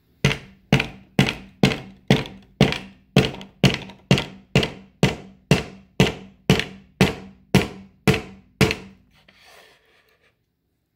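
Steel claw hammer driving a nail into a wooden board on a tabletop: about eighteen steady blows, two a second, stopping a couple of seconds before the end.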